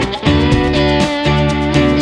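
Background music led by guitar, with chords and notes that bend in pitch.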